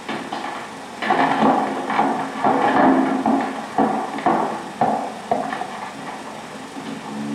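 Footsteps on a wooden floor, about two a second, dying away near the end.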